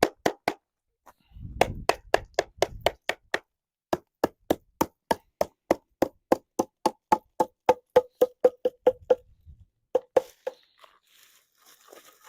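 Hammer knocking on the wooden concrete forms to loosen and strip them from the cured concrete: a long run of sharp, evenly spaced knocks that gets faster, with a few low thuds in between.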